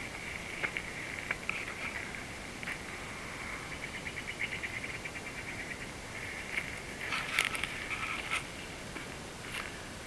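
Insects trilling steadily in a high band, with a stretch of fast, even pulsing about four seconds in. Rustling and crunching from footsteps through dry grass and brush grow louder in the second half.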